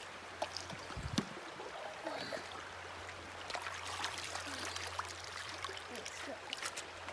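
Shallow creek water running over stones, with splashing and trickling as a kettle is dipped into the water and poured out.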